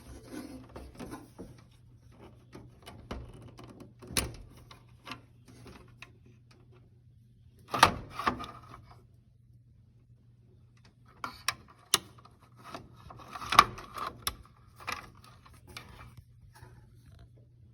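Plastic wire-harness connectors on a Whirlpool Duet dryer's control board being pulled off and pushed on, with handling of the board and its plastic housing: a series of irregular sharp clicks and rattles, loudest in two clusters about halfway and about three-quarters of the way through.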